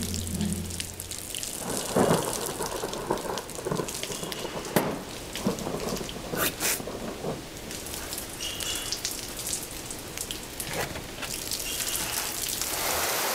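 Steady rain falling in a thunderstorm, with several sudden sharp cracks of thunder.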